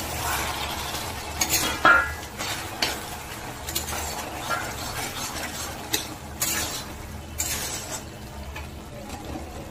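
A white spatula stirring and scraping a thick, nearly cooked bottle gourd and prawn curry around a black kadai, in irregular strokes with the loudest scrape about two seconds in, over a low steady simmering sizzle.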